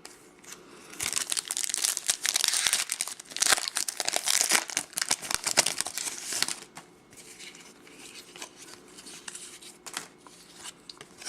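A foil pack of 2010 Topps Chrome baseball cards being torn open and crinkled, a dense crackling for about five seconds. Then quieter, scattered small ticks.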